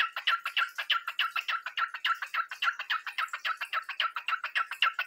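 Cockatiel singing: a rapid, even run of short downward-sweeping chirps, about five or six a second.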